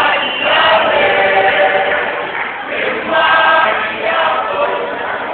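A group of voices singing a gospel song together, choir-style.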